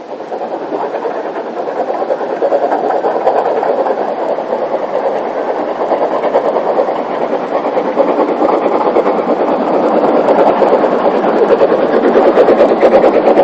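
Narrow-gauge steam locomotive working hard up a steep bank with a heavy train: a rapid, steady run of exhaust beats that grows louder toward the end as the train draws near.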